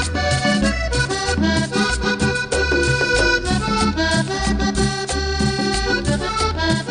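Instrumental passage of a Colombian cumbia song: an accordion plays the melody over a repeating bass line and steady percussion, with no singing.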